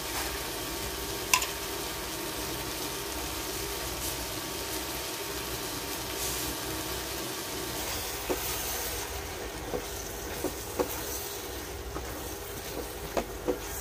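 Drumstick and tomato sizzling quietly in a frying pan on an induction cooktop, with a steady hum underneath and a few light clicks spread through.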